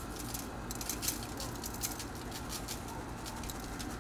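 Dry rib rub shaken from a plastic shaker bottle, the granules pattering onto mustard-coated pork ribs and foil as a fast, irregular run of light ticks that starts under a second in.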